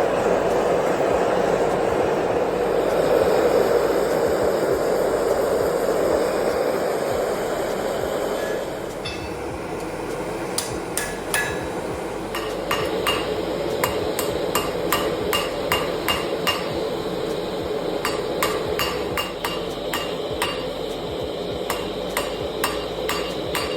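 Steady rushing noise for the first nine seconds or so, then quick, ringing hammer blows on steel against an anvil, a few a second, as the knife's tang is forged from carbon steel.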